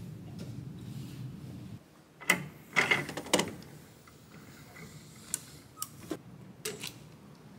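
Knocks and clatters of handling in a capsule-hotel pod as luggage is set down and the pod's pull-down shade is worked by its handle: a quick cluster of sharp knocks about two and a half seconds in, then a few lighter, separate clicks. A steady low hum comes before and stops about two seconds in.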